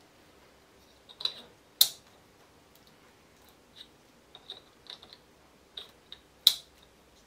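Self-locking plastic multi-pin wing connectors (Hacker Click Connect) being pulled apart and plugged back together, with two sharp clicks, about two seconds in and near the end, as the plug halves snap together and lock. Lighter plastic ticks and cable rustles in between.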